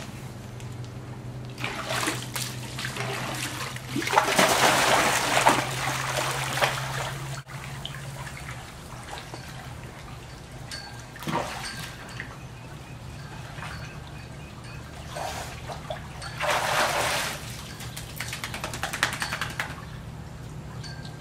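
A German Shorthaired Pointer splashing through water in several bursts, the longest and loudest from about two to eight seconds in, another about three-quarters of the way through, and a few short splashes between. A low steady hum sits underneath.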